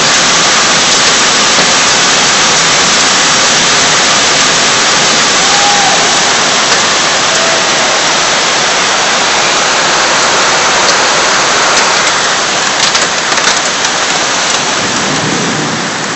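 Heavy tropical downpour: a loud, dense, steady hiss of rain pouring onto streets, roofs and trees, growing a little duller and quieter in the last few seconds.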